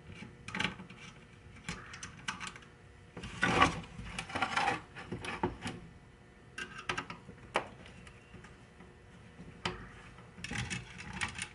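Screwdriver turning the screws that hold a CPU cooler to a desktop motherboard: scattered small clicks, ticks and scrapes of metal on metal and plastic, with a louder burst of clatter about three and a half seconds in.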